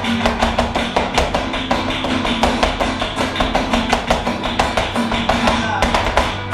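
Flamenco music: guitar playing with rapid, sharp percussive taps throughout.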